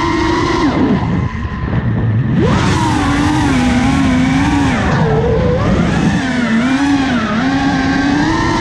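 FPV quadcopter's motors whining, the pitch wavering up and down with the throttle. The whine drops about a second in, then surges back up about two and a half seconds in.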